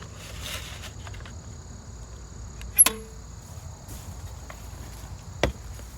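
Handling of a Makita 9403 belt sander while a new sanding belt is fitted: faint rustling, then two sharp clicks about three and five and a half seconds in, the first the loudest with a brief ring. Crickets chirp steadily underneath.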